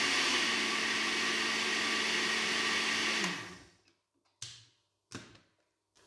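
Countertop electric blender running steadily, blending a runny flour-and-water batter, then switched off about three seconds in, its motor winding down with a falling pitch. Two sharp clicks follow, under a second apart.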